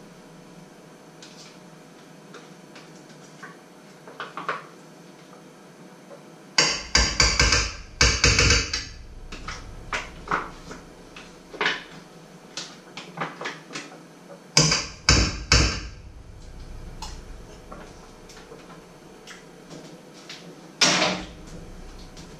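Kitchen utensils knocking and clattering against a metal pot and a wooden cutting board: two quick runs of sharp knocks about a third and two thirds of the way in, one more hard knock near the end, and lighter scrapes and clicks between.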